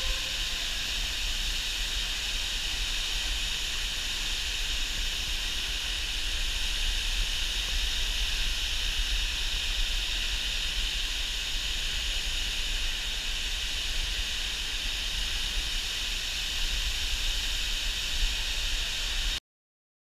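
A 30 m waterfall pouring into its pool inside an enclosed rock shaft: a steady, unbroken rush of falling water with a low rumble beneath. It cuts off abruptly near the end.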